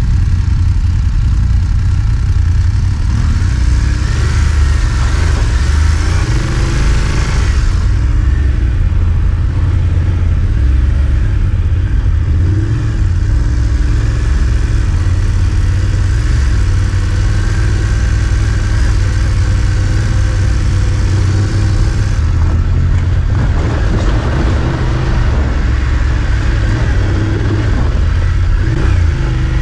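BMW adventure motorcycle engine running, heard through an onboard microphone, its pitch rising a couple of times as the throttle opens, under a heavy low wind rumble.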